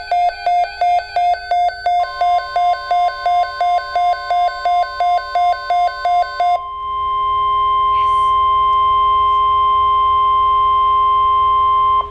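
Emergency alert tones: a rapid electronic beeping, about three beeps a second, for the first six and a half seconds, then a steady single alarm tone like the NOAA Weather Radio warning tone, held for about five seconds and cut off abruptly near the end.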